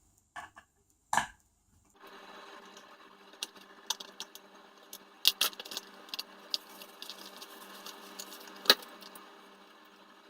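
Scattered light clicks and taps of a small plastic RC servo and hand tools being handled, over a faint steady hiss; one sharper click near the end.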